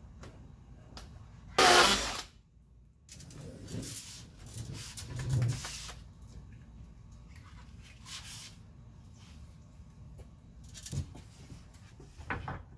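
A cordless drill boring into the tongue-and-groove pine ceiling boards in one short, loud burst about two seconds in. Scattered knocks and rustles follow as the drill and gear are handled.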